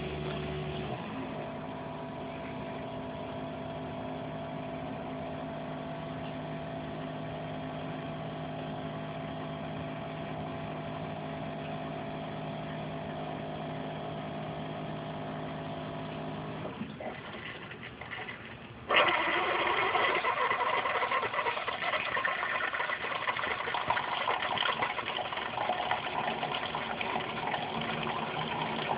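Keurig single-cup coffee maker brewing: a steady hum for the first half, then, about 19 seconds in, a louder rushing of water as the pump forces hot water through the K-cup and coffee streams into the cup.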